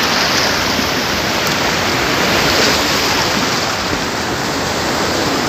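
Small waves breaking and washing up a sandy beach, a steady rush of churning, foaming water in the shallows.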